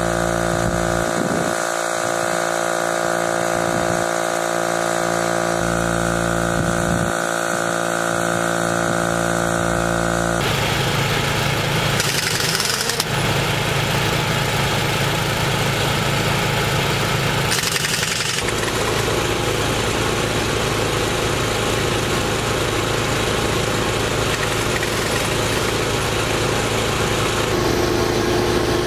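Portable air compressor running steadily, pumping air into a telehandler tire through its hose. The sound shifts abruptly about ten seconds in and again near eighteen seconds.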